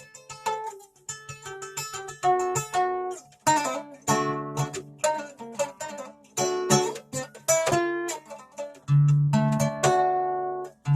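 A plucked string instrument, most like a guitar, being played: a quick run of picked notes and chords over a held low bass note.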